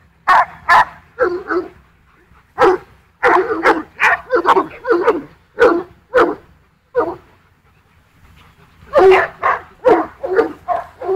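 Dogs in a pack barking in short, quick bursts. The barking stops for a couple of seconds past the middle, then comes back thickly near the end.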